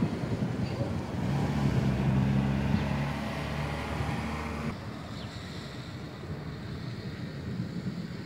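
Wind rumbling on the microphone during a rain storm. From about a second in to about the middle, a low steady engine-like drone sounds over it.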